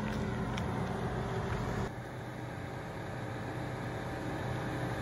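Jeep Grand Cherokee Trailhawk engine running at low revs as the SUV crawls over rocks, a steady low hum with a couple of faint knocks early on. The note and level drop slightly about two seconds in.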